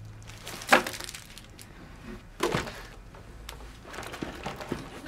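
A few sharp knocks and clatters of small shop goods being put or dropped back, the two loudest about three-quarters of a second and two and a half seconds in, with lighter taps after.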